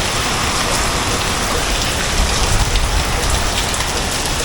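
Heavy hurricane rain pouring steadily, with strong wind rumbling low underneath.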